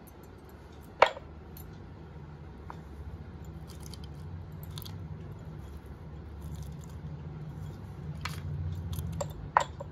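Spoon and glass handling while a falooda dessert is assembled: a sharp clink about a second in and another near the end, with soft scraping and small ticks between.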